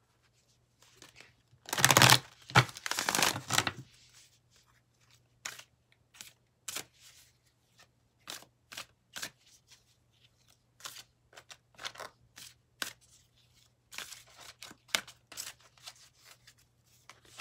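A deck of oracle cards being shuffled by hand. A loud rustling flurry comes about two seconds in and lasts about two seconds, followed by a long run of short, separate taps and flicks as cards are slid and dropped within the deck.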